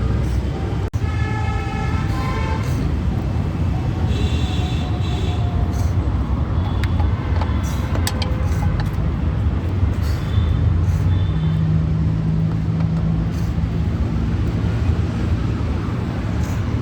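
Steady rumble of road traffic, with brief horn toots and one sharp click about a second in.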